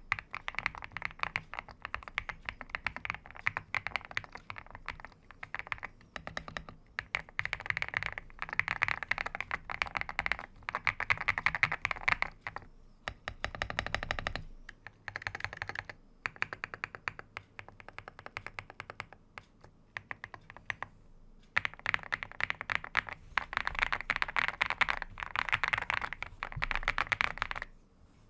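Typing on a GMK81 mechanical keyboard with linear switches: fast runs of key clicks in bursts of a few seconds, separated by short pauses.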